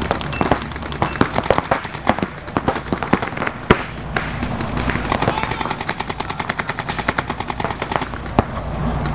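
Paintball markers firing rapid strings of sharp pops.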